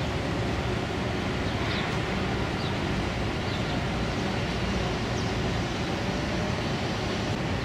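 Steady low rumble with an even rushing noise from a large container ship under way, unchanging throughout, with a few faint short high chirps.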